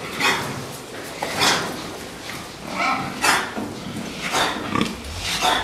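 Fattening pigs crowded in a pen, grunting and giving short, sharp squeals, one every half second to a second.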